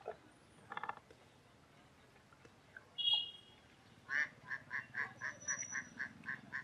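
An animal calling: a run of evenly repeated pitched calls, about four a second, starting a little past halfway, with a few single short calls before it.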